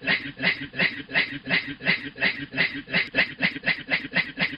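A man imitating a steam train with his voice: rhythmic, laugh-like breathy chuffs at about three a second, quickening slightly past the middle.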